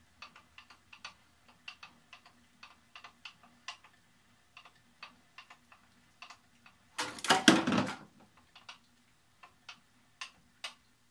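Light, irregular metallic clicks, a few a second, while a benchtop milling machine's column is lowered back onto its base. About seven seconds in, a loud burst of noise lasts about a second, then only scattered clicks.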